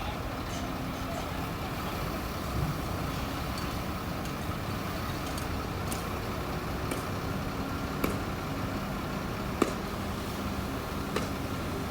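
Bulldozer's diesel engine running steadily, with a few sharp knocks.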